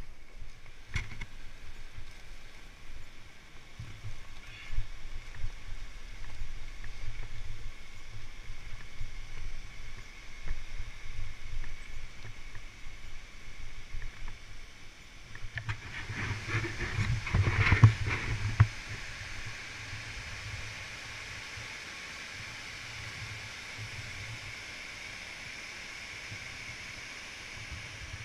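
Fat-bike ride over a rough, leaf-covered trail, heard as an uneven low rumble with knocks and rattles from the bike and mounted camera, rising to a loud couple of seconds of jolting clatter. After that the rattling stops and a steady hiss of a rushing river remains.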